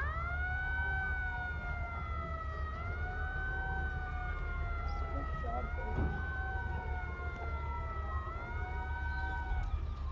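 Warning siren wailing, the kind sounded ahead of a demolition blast: one pitched tone that jumps up and then slowly sinks, repeating about every three seconds, and stops shortly before the end.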